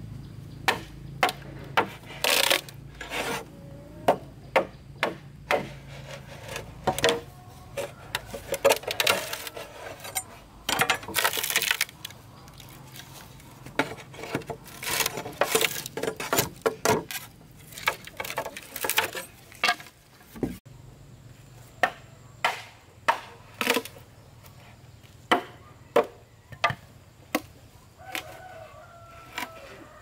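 Machete knocking and chopping at split green bamboo pipes: irregular sharp cracks and knocks, with a few bursts of rapid cracking and scraping as the blade works along the inside of the split pipe.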